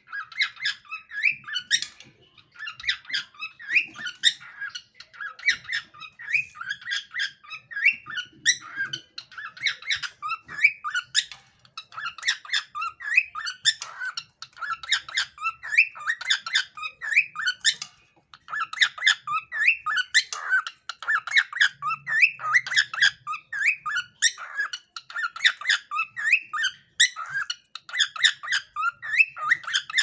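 Cockatiel chattering and chirping: a rapid, continuous stream of short high notes, breaking off briefly about 18 seconds in.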